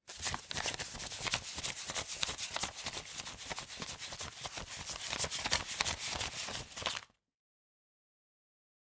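Paper banknotes being counted: a rapid, continuous riffle of crisp bills flicking past one another, full of small papery clicks. It runs for about seven seconds and stops abruptly.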